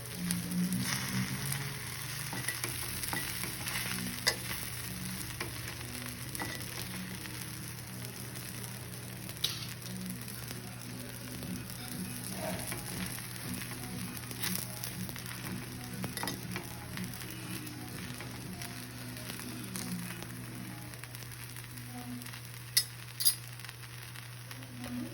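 Food frying in oil on a hot pan, with a steady sizzle. Scattered light clicks run through it, and two sharp taps come near the end.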